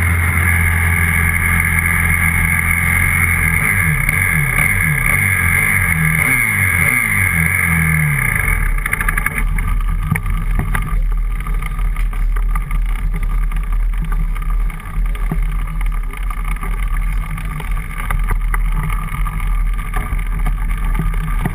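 125cc grass-track motorcycle engine running, its revs rising and falling several times. About eight seconds in the engine note drops away, leaving a low rumble and buffeting on the bike-mounted camera's microphone.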